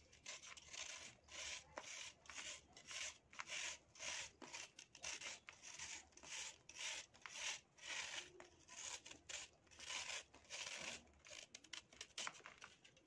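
A paring knife blade shaving a dry moulded sand block in repeated soft scraping strokes, about two to three a second, with loose sand sifting off the block.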